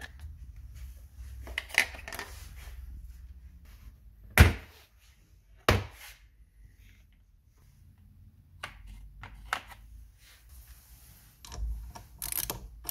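Hand tools and a plastic socket-set case being handled: two sharp knocks about four and a half and six seconds in, with scattered lighter clicks and rustling, and a cluster of metal clicks near the end.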